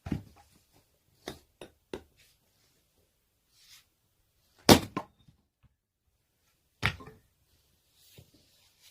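Firewood being split with an axe: sharp wooden strikes, the loudest a little before the middle and another about two seconds later, with a few lighter knocks of wood in the first two seconds.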